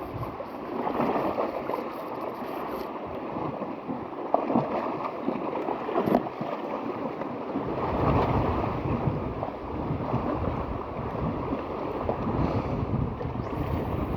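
Wind buffeting the microphone, heavier from about halfway through, over the steady wash of sea waves on the shore.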